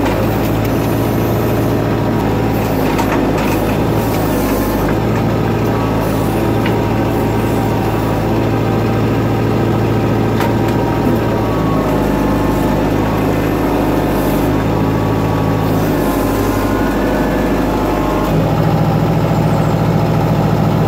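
Backhoe's diesel engine running steadily while it digs, its note shifting up and down every few seconds as the hydraulics take and release load, with a few faint knocks.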